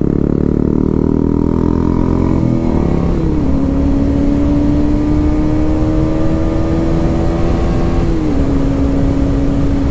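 A KTM Duke 250's single-cylinder engine running at road speed. Its note drops twice as it shifts up, about three seconds in and again about eight seconds in, and climbs slowly in between. Heavy wind rushes over the microphone.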